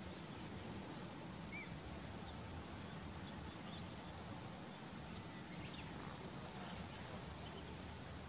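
Faint ambience: a low steady rumble with scattered, faint high chirps of distant birds.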